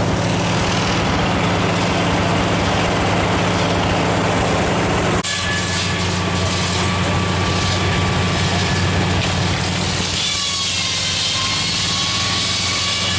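Antique tractor engine running steadily, driving a long flat belt to a shingle mill, with a constant low hum. About five seconds in the sound changes abruptly, and a thin steady whine from the machinery comes through afterwards.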